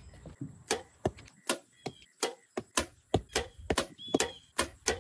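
Footsteps on wooden deck boards, a steady walking rhythm of about two to three sharp knocks a second, starting just under a second in.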